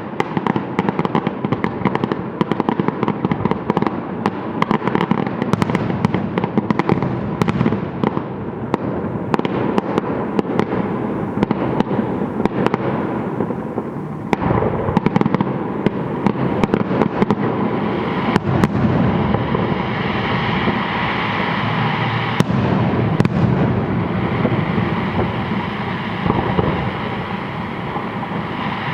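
Fireworks display: a continuous, dense barrage of bangs and crackling bursts.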